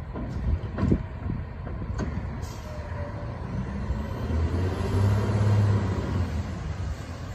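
Autocar WXLL McNeilus garbage truck's diesel engine running at a distance, revving up for several seconds in the middle as it works the cart arm's hydraulics, with two sharp knocks about one and two seconds in.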